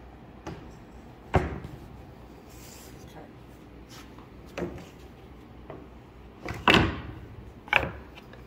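A series of about six sharp knocks and thumps from pieces of wooden countertop stock being handled, the loudest about a second and a half in and again just before seven seconds in.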